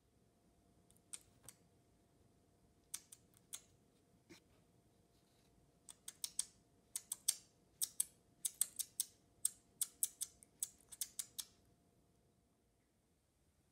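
A series of sharp, high-pitched clicks: a few scattered ones at first, then a quicker irregular run of several a second that stops about eleven and a half seconds in.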